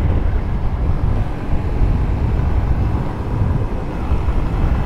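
A motorcycle being ridden at a steady pace: low wind buffeting on the microphone, with the engine and road noise running steadily beneath it.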